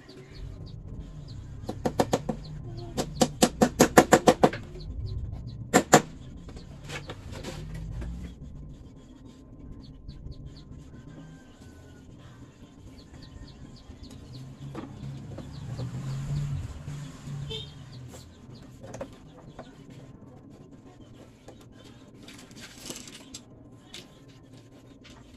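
A quick run of sharp knocks, about four a second, from about two to four and a half seconds in, and a double knock near six seconds. After that comes softer clatter of wooden slats and frames being handled.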